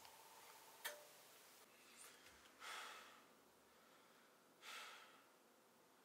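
Faint: a single click about a second in, then two slow, heavy breaths out, like sighs, about two seconds apart.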